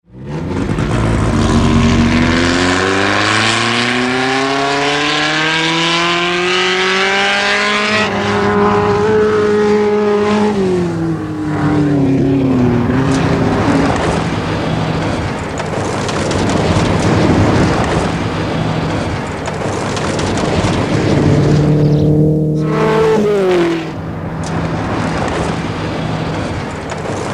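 Rally car engine at full throttle, its pitch climbing for several seconds, then falling away about ten seconds in. Rough engine and road noise follows, with another fall in engine pitch near the end.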